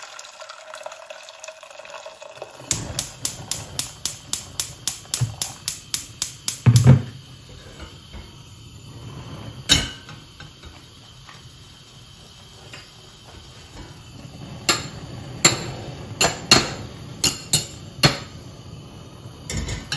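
Hot water poured from a kettle into a stainless steel saucepan. Then a gas lighter clicks and sparks at the hob burner, about four quick clicks a second, with a heavier thump about seven seconds in and another, more uneven run of clicks near the end as the burner is lit.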